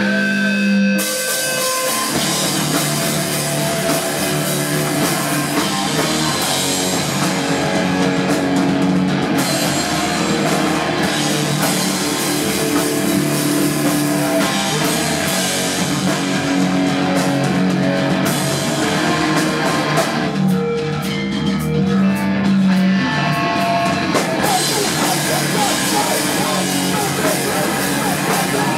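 Hardcore punk band playing live on electric guitars and drum kit. The full band with cymbals comes in about a second in. Past the middle the cymbals drop out for a few seconds, then the drums come back in fully.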